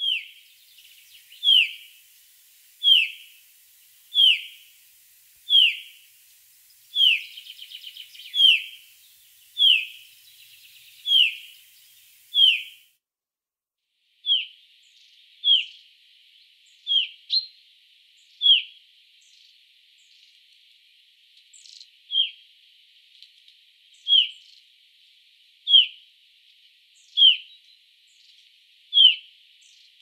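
Common chaffinch of the Black Sea subspecies repeating a single short, downslurred call note about once every one and a half seconds, with a brief break about halfway through.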